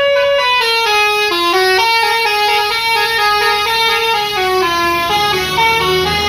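An intercity bus's multi-tone musical horn (an Indonesian "telolet" horn) playing a tune of held notes that step up and down in pitch. A low engine drone comes in near the end as the bus moves off.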